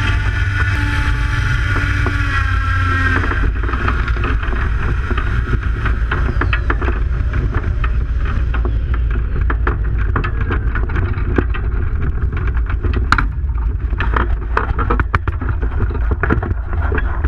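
Heavy wind buffeting on the microphone during flight, a steady low rumble throughout. For the first three seconds or so the hang glider's electric harness motor and propeller whine over it, then cut off. Scattered knocks and clicks fill the second half as the glider comes in to land.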